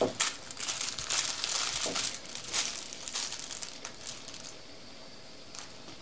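A sheet of aluminium foil crinkling as it is handled and laid flat on the work surface: a dense run of crackles for about four seconds that then dies away.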